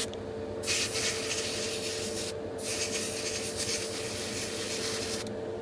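Airbrush hissing as it sprays a light mist coat of thinned paint onto a plastic model part, in two long passes with a short break just after two seconds, stopping about half a second before the end. A steady motor hum runs underneath.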